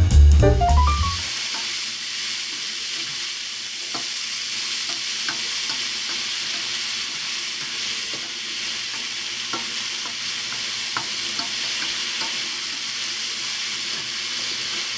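Background music ends about a second in. Then mushrooms, cherry tomatoes and green bell pepper sizzle steadily in a frying pan, stirred with a spatula that makes small scattered scrapes and taps against the pan. They are being fried until the tomatoes soften.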